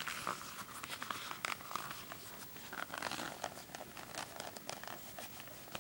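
Calfskin-bound Bible with thin pages being folded and flexed in the hands: irregular rustling and crinkling of the paper and cover.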